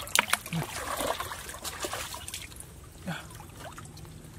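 A fish dropped into a plastic bucket of shallow water: sharp splashes and drips in the first second or so, then quieter small splashes as the fish move in the water.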